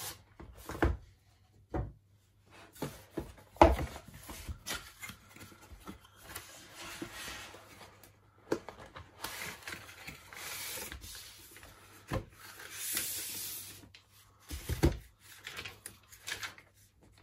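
Cardboard watch packaging being handled: a Seiko box slid out of its cardboard sleeve and its carton flaps opened, with rubbing and scraping of card on card and scattered soft knocks of the boxes on the table. The longest sliding scrapes come about nine and thirteen seconds in.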